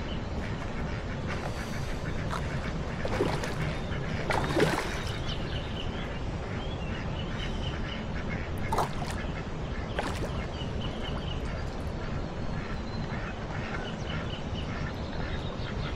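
Ducks quacking in repeated runs of short calls, with a few brief sharp noises among them, over a steady low background noise.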